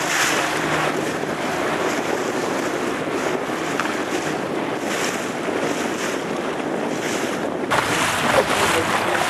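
Wind rushing across the microphone over water splashing and lapping, a steady noise with gusts about once a second. The sound changes abruptly about eight seconds in.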